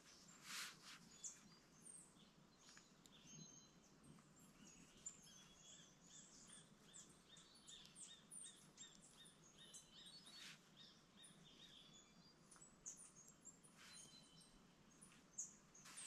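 Faint chirps and call notes of small forest birds in a mixed flock, including a quick series of short, evenly spaced high notes for several seconds in the middle. A pen scratches on paper a few times.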